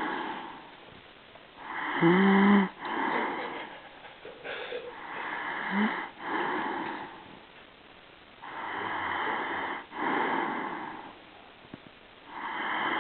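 A person snoring: noisy snores in pairs, in and out, about every four seconds, with a short pitched snort in the first one.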